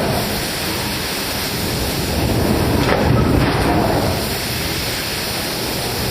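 Steady, loud industrial noise of a hot forging plant: a dense rumbling roar of machinery and blowers that swells and eases slowly over a few seconds.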